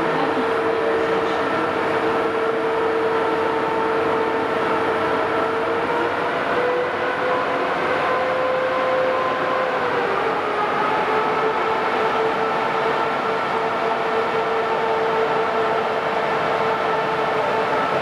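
EP2K DC electric locomotive pulling away slowly with a passenger train: a steady electric whine of several held tones over a broad running noise. The tones shift in pitch about ten seconds in, then settle again.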